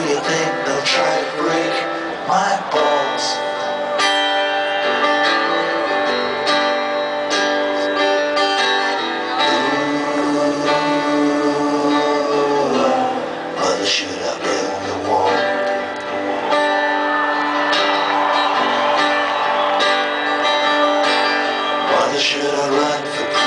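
A live rock band playing through a festival PA, heard from within the crowd: strummed guitar with keyboards, and voices singing.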